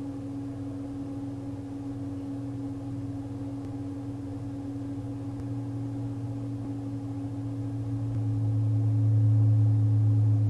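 A steady drone of low held tones that swells louder about eight seconds in.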